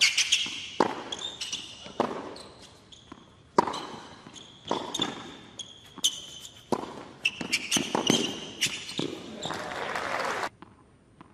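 A tennis rally on an indoor hard court: rackets striking the ball and the ball bouncing, about once a second, echoing in the arena, with shoes squeaking sharply on the court. Near the end a short swell of crowd noise rises and then cuts off suddenly.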